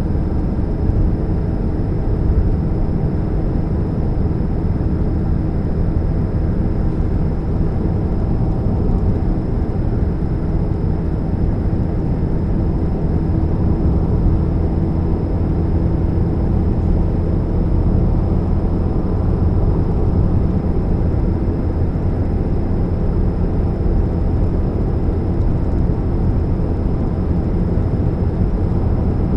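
A 2013 Chevrolet Spark running, with a steady low rumble and a faint steady hum over it. The owner puts the hum down to a leaking catalytic converter.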